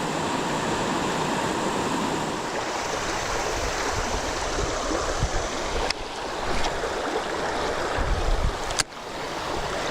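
Steady rush of a creek running high after heavy rain.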